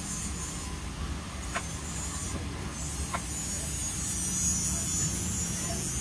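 Stainless steel TIG welding: a few faint ticks over a steady low rumble, then the arc burns with a steady hiss and buzz, strongest in the second half.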